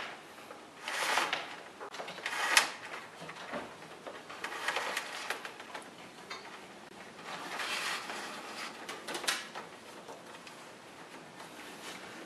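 Parking-sensor cables rustling and scraping as they are pulled by hand through a rubber grommet in a car's rear body panel, in uneven spells with a sharp click about two and a half seconds in.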